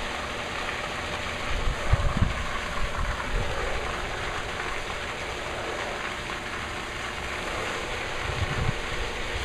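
Steady hiss of a rain simulator's overhead spray nozzles running at a simulated rainfall of 11.5 inches per hour, water falling onto the wet test bed. Wind buffets the microphone in low gusts about two seconds in and again near the end.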